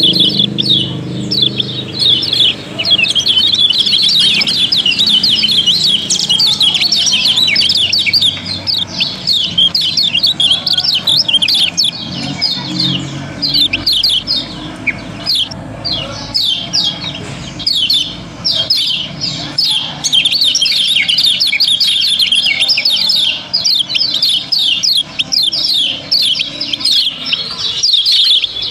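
Caged kecial kuning white-eyes chirping busily together, a dense unbroken stream of short, high, quickly falling chirps. A low hum sits under them in the first few seconds.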